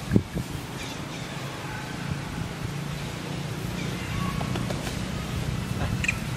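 A low, steady engine hum that grows slightly louder, with a sharp click just after the start and a few faint short high-pitched sounds later on.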